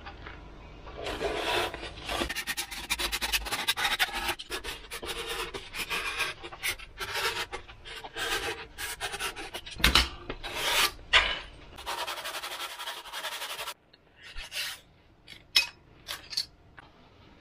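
Depron foam being handled, pressed together and trimmed with a snap-off craft knife: a dense run of rubbing, scraping and crackling. It thins out to a few scattered clicks and taps for the last few seconds.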